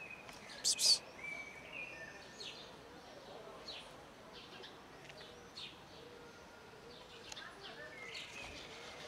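Wild birds chirping, with many short, high chirps throughout and one loud, sharp call just under a second in.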